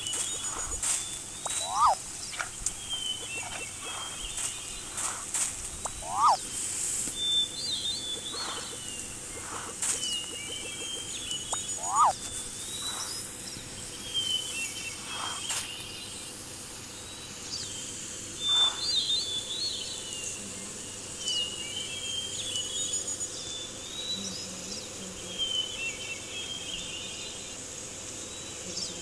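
Outdoor nature ambience with birds: a short high twittering phrase repeats every three to four seconds, with a few quick sharp chirps in between.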